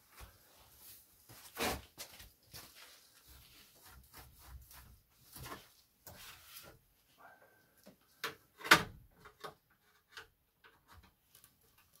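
Hands working inside the open frame of an Aprilaire 700 whole-house humidifier: scattered clicks, knocks and rustling of parts being handled, with one sharp knock, the loudest, a little before nine seconds in.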